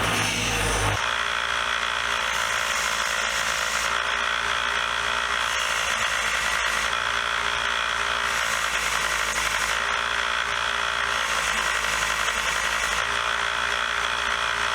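A power tool running steadily under load, cleaning rust off a steel screwdriver shaft and tip. The sound changes about a second in, then holds even until it cuts off at the end.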